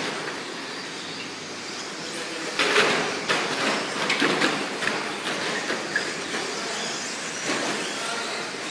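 R/C short-course trucks racing on a dirt track: a steady mix of small motors and tyres on dirt. About two and a half seconds in there is a flurry of clattering knocks that lasts for about two seconds.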